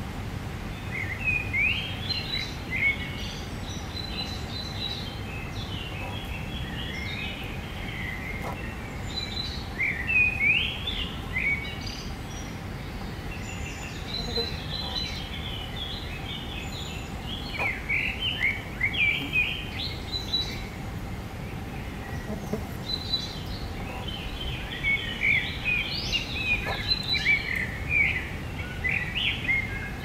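A songbird singing in spells of quick, varied chirping notes, several phrases a few seconds long with pauses between them, over a steady background hiss.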